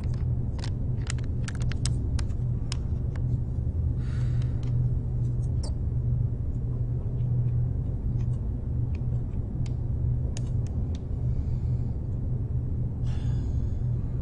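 Steady low hum and rumble of a closed room, with scattered light clicks and two short rustles, one about four seconds in and one near the end.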